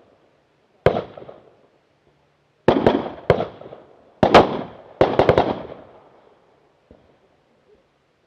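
Rifle shots fired in quick strings at a practical shooting stage: one shot about a second in, then rapid groups of two to four shots, each crack trailing a short echo.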